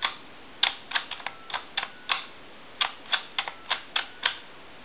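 Buttons of a touch-tone telephone keypad clicking as they are pressed one after another, about fifteen sharp clicks at an uneven pace, with a faint short tone under a few of them. The numbers are being keyed in turn to test the keypad, whose linkages and springs have just been reworked.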